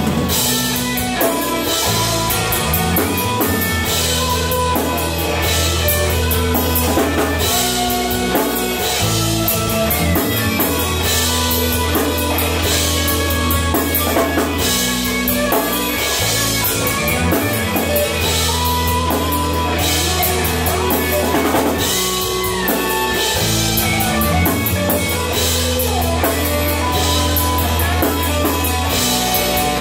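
Rock band playing live: electric guitars, bass guitar and drum kit, with cymbals crashing again and again over a steady, loud bass line.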